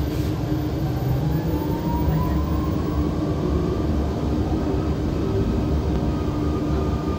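KAMAZ-6282 electric bus driving, heard from inside the cabin: a steady low road rumble with the electric traction motor's whine rising in pitch as the bus speeds up, levelling off near the end.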